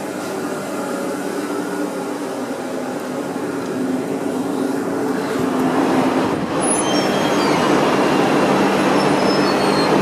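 Container ship engine-room machinery running: a loud, steady drone with several humming tones under it. It grows louder about halfway through as the engine room is entered, then holds steady.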